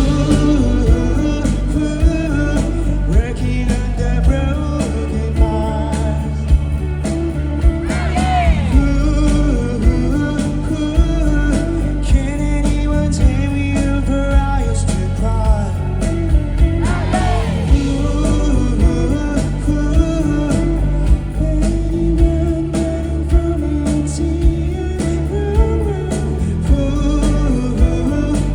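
Live rock band playing loudly, with singing over drums and bass.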